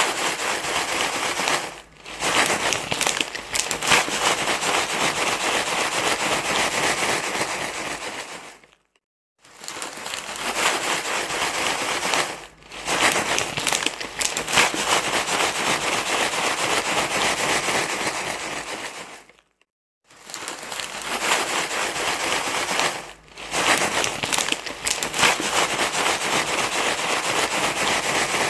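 Loud crinkling, rustling noise, like crumpled material being worked continuously. It comes in stretches of about ten seconds, separated by short silences about 9 and 19.5 seconds in, and it repeats as a loop.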